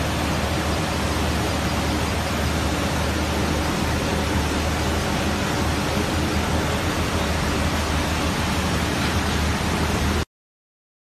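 Steady rushing of slurry gushing from pipes into a concrete tailings settling tank, over a low, steady hum of plant machinery. The sound cuts off abruptly shortly before the end.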